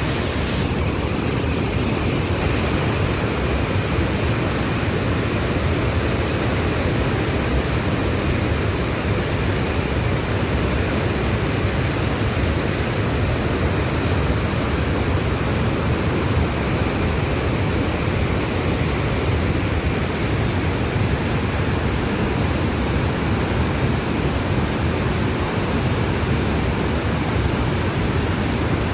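A waterfall's steady rush of falling water, loud and unbroken.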